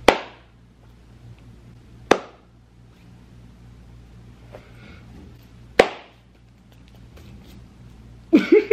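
Three sharp hits, each with a short ringing tail: one at the start, one about two seconds in and one near six seconds, over a low steady hum.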